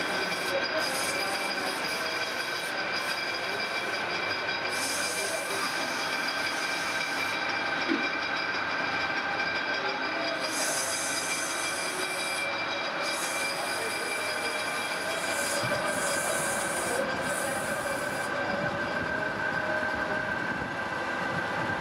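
Metal lathe running steadily with a high whine as it spins a stepped pulley, with a hiss that comes and goes several times from abrasive cloth rubbing the turning metal.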